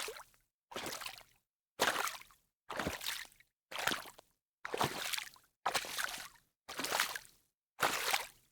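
Footsteps wading through shallow water: a sloshing splash with each step, about one a second, with silence between steps.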